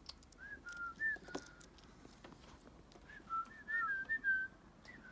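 Small birds calling with short, faint whistled chirps: a few near the start, then a quick run of overlapping notes about three to four seconds in.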